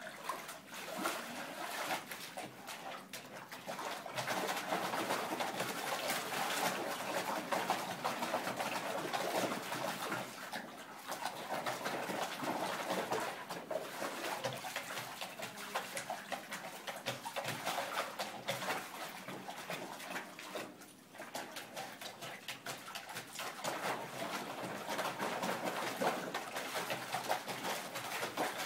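A dog pawing and digging in a rubber water trough, the water splashing and sloshing continuously, with a short lull about two-thirds of the way through.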